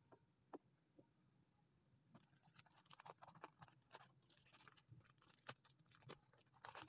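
Faint crinkling and rustling of clear plastic packaging being handled, a few scattered clicks at first, then a dense run of crackles from about two seconds in.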